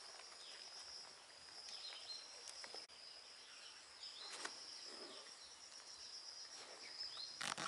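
Faint, steady high-pitched insect drone, with a few faint short chirps and light clicks over it; a short sharp noise near the end.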